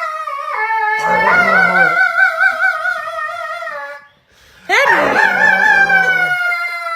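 Dog howling: long, wavering howls, one from about a second in lasting some three seconds, and another starting near five seconds that slowly falls in pitch.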